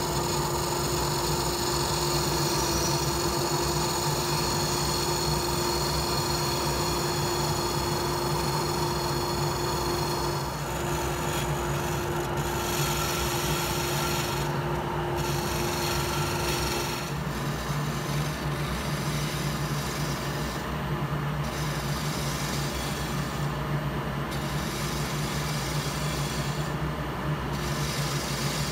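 Wood lathe running while a turning tool cuts a spinning red eucalyptus handle blank, a continuous scraping, shaving sound. A steady tone under the cutting stops about two-thirds of the way through.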